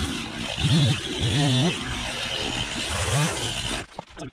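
Gas chainsaw cutting through fallen tree limbs, its engine revving up and dropping back over and over as the throttle is worked. The engine cuts out suddenly near the end, leaving a few faint clicks and knocks.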